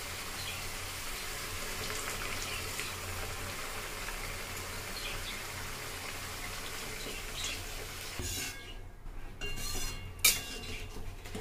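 Masala fried until the oil has separated, sizzling steadily in a metal kadai, then a flat metal spatula scraping and knocking against the pan about eight seconds in, with one sharp clank near the end.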